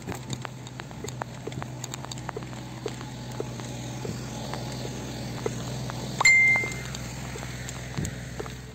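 Mountain bike rolling over rough trail, with a steady hum and a constant patter of small clicks and rattles. About six seconds in there is one sharp metallic ding that rings briefly.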